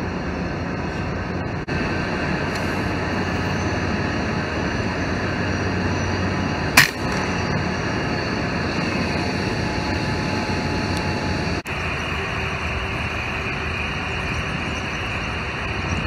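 Steady rushing background noise, broken by a single sharp crack about seven seconds in: a shot from an FX Dreamline Lite .177 PCP air rifle. The sound briefly drops out twice.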